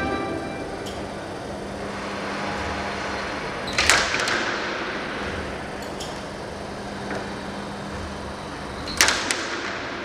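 Two sharp cracks about five seconds apart, each a quick double strike that rings out in a reverberant hall, over a steady low hum.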